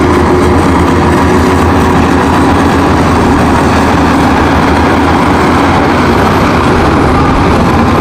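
Shantui crawler bulldozer's diesel engine running steadily under load as it pushes a pile of soil and rock with its blade: a loud, continuous machine noise over a low hum.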